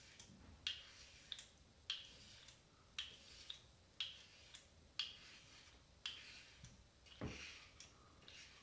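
HeadBlade S4 Moto razor scraping through lathered stubble on a scalp in short strokes, each a brief faint rasp, about one a second.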